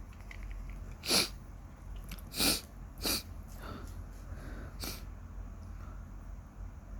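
A person sneezing three times in quick succession, the first about a second in and the loudest, followed by a couple of fainter sharp bursts.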